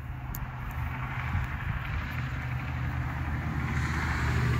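A vehicle engine running with a steady low rumble that grows a little louder toward the end, with a faint click or two near the start.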